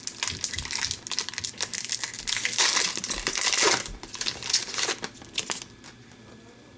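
A hockey card pack's foil wrapper being torn open and crinkled by hand. The crackling stops about a second before the end.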